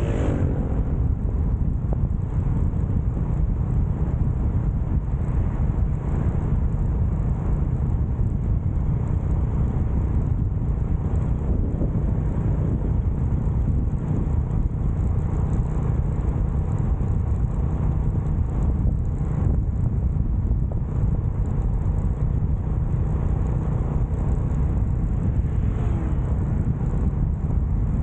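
Steady rush of wind and road noise while riding a motorcycle, with a falling pitch at the very start as the engine revs drop.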